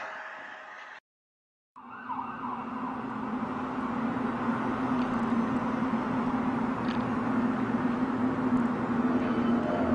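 A steady droning hum fades out, then after a cut to silence about a second in, a new droning hum starts: a low steady tone with a hiss-like band above it, slowly growing louder. This is the unexplained 'strange sound' heard in the sky.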